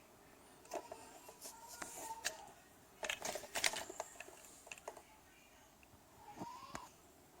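Plastic clicks and rattles from a Theo Klein Bosch II toy electronic screwdriver being handled. A faint whirring tone comes in about a second in, and the clicks are busiest midway.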